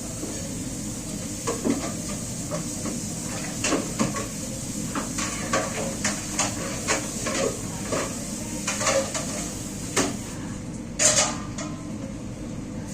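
Dishes and pans clinking and clattering as they are washed by hand, with a louder clatter about eleven seconds in, over a steady background noise.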